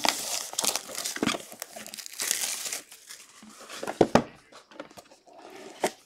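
Plastic wrap being torn and crinkled off a sealed trading-card box, loudest in the first three seconds. A few sharp knocks follow near the end as the box is handled.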